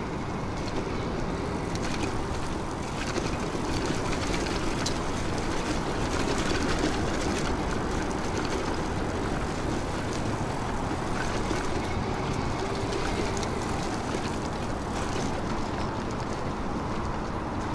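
Steady rush of wind and tyre noise from an electric bike being ridden, with a few faint clicks and rattles scattered through it.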